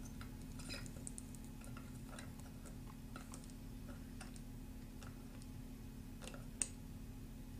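Faint, irregular small clicks and taps as a bullet connector and its wire are worked with a soldering iron, the solder heated and the wire pushed down into the connector. A steady low hum runs underneath. One sharper click comes about two-thirds of the way in.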